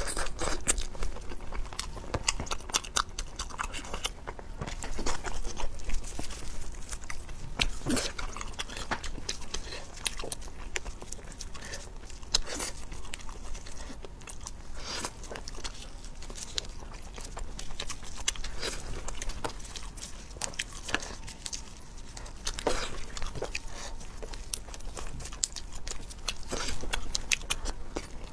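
A person chewing and biting cooked shellfish, with the shells crackling as they are peeled apart; many short, irregular crunches.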